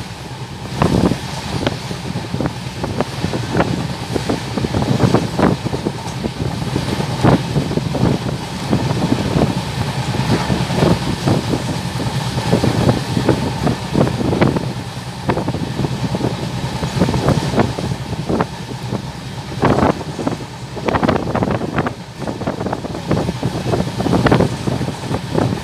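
Passenger train coach running at speed, heard through an open window: a steady rumble of wheels on rails with frequent sharp, irregular clacks, and rushing wind.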